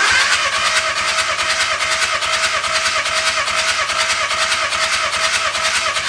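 Volkswagen Caddy diesel engine cranking on its starter motor for a compression test, glow plugs removed, so it turns over without firing. There is a steady starter whine over a rapid, even chugging of the compression strokes.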